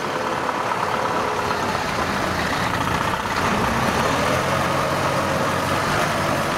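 Engine of a tracked rice transporter running steadily as the machine crawls across a ditch, its note shifting up slightly around four seconds in.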